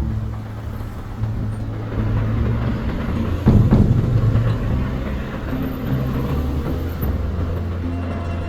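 Background music with low held notes that change every second or so, and a single deep drum hit about three and a half seconds in.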